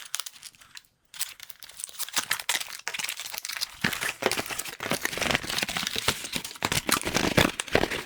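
Packaging crinkling and rustling as a box of lights is unpacked by hand: a dense run of crackles and scrapes, with a brief pause about a second in.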